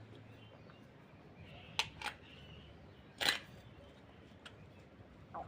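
A few sharp clicks and knocks as stand fan motor parts are handled and fitted together by hand. The loudest comes about three seconds in, after two lighter ones.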